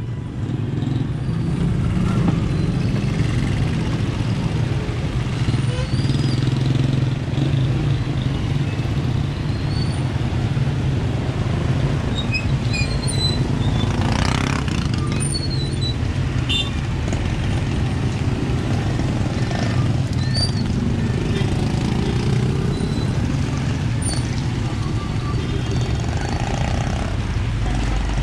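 Busy road traffic: vehicle engines running and passing in a steady rumble, with one vehicle going by louder about halfway through.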